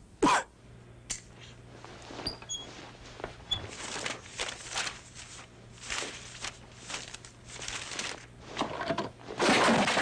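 Foley effects performed to picture by two Foley artists: a sharp thump, then a run of rustling and scuffing with a few small clinks, ending in a loud burst of rustling.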